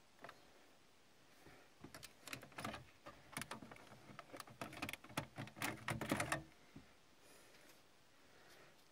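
Pioneer DEH-P4100SD car stereo's detachable faceplate being unclipped and pulled off by hand: a quick series of small plastic clicks and knocks for about five seconds.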